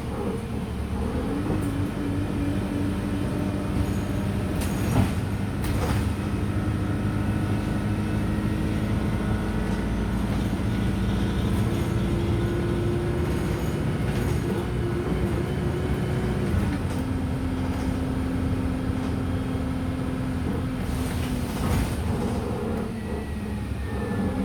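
Wright StreetLite DF single-deck bus heard from inside while under way: a steady engine and transmission drone with road rumble. Its pitch rises about a second in, holds, and drops back about 17 seconds in. A few sharp knocks or rattles sound around 5, 6 and 22 seconds.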